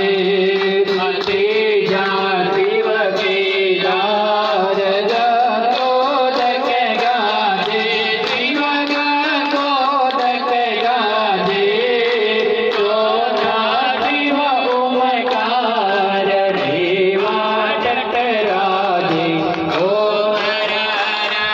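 Hindu devotional aarti sung by a group without a break, with a hand drum keeping time and hands clapping along.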